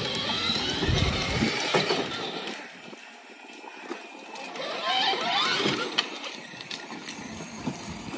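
Battery-powered Dodge Power Wheels ride-on truck driving along a concrete path, its electric drive motors and plastic gearbox whining up and down in pitch with the plastic wheels rolling, the repaired truck running again; a second ride-on toy runs close behind. The sound drops quieter about three seconds in, then picks up again about five seconds in.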